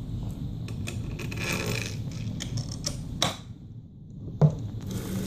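Hands working on a 3D printer's frame, with scrapes and small clicks of metal rods and printed plastic parts as a rod is fitted into the X-axis, and one sharp knock about four seconds in.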